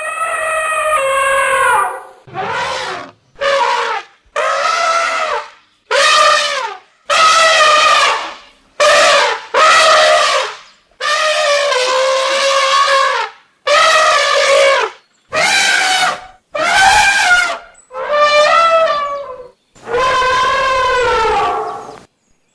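African elephants trumpeting: a quick string of about a dozen loud, brassy trumpet calls, each lasting half a second to two seconds, with short silent gaps between them.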